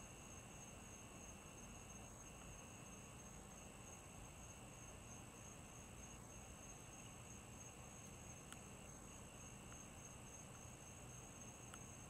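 Faint, steady insect chorus, crickets trilling at several high pitches without a break.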